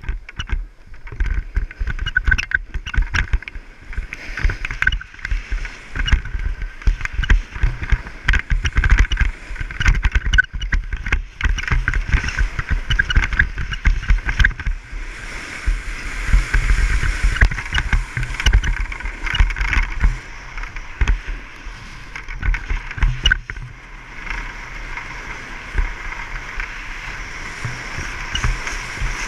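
Wind buffeting the microphone while moving fast down a groomed ski run, with the steady hiss and scrape of edges sliding over packed snow. The rumble is gusty and uneven, with many sudden thumps.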